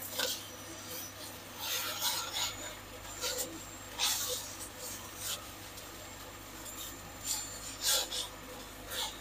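A plastic slotted spatula scraping and chopping against a wok as it breaks up an omelette, in irregular strokes.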